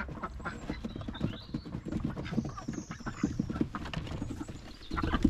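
Domestic ducks giving short, low, irregular quacks.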